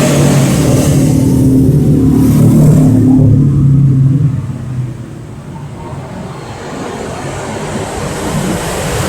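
Hino Dutro 130 HD's turbo-intercooled diesel engine running with a steady low hum, loud for the first four seconds, then dropping off to a quieter rumble.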